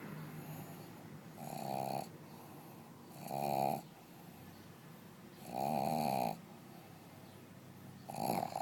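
Pug snoring: four loud snores, about two to two and a half seconds apart, each lasting under a second.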